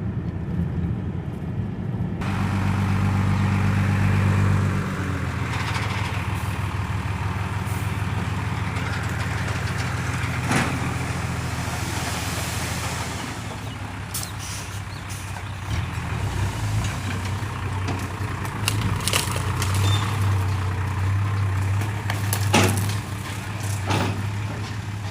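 Hino dump truck's diesel engine running steadily under load, its note louder for a couple of seconds near the start. A few sharp knocks or clanks come through over it.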